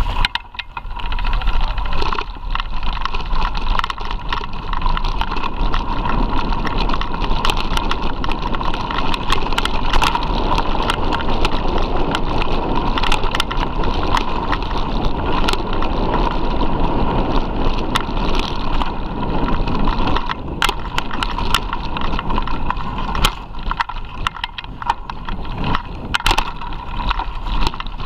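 Mountain bike ridden fast over a rough dirt trail, recorded from a camera mounted on the bike or rider: a continuous rumble of tyres and frame over the ground, with many sharp rattles and knocks as it bounces over bumps.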